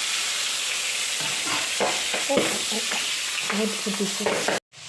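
Singhi fish (stinging catfish), coated in salt and turmeric, frying in hot oil in a wok: a steady, loud sizzle with scattered spitting crackles. It cuts off suddenly near the end.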